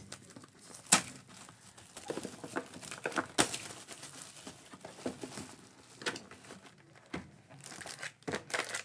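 A cardboard trading-card box being opened by hand and foil card packs crinkling as they are lifted out. It is an irregular rustle broken by sharp clicks and snaps, the loudest about a second in and again about three and a half seconds in.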